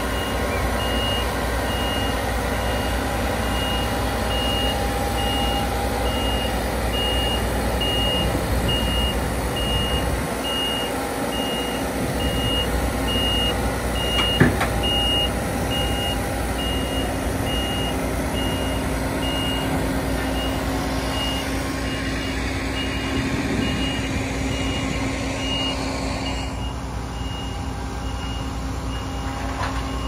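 Claas Lexion tracked combine harvester running as it backs down the ramps of a low-loader trailer, its reversing alarm beeping steadily. A single clunk sounds about halfway through.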